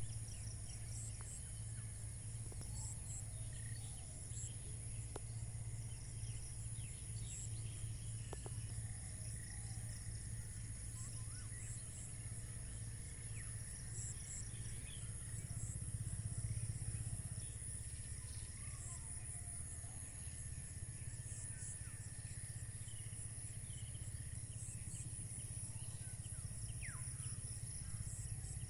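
Field ambience: a steady high insect trill with short pulses repeating through it, scattered brief bird chirps, and a low steady hum underneath.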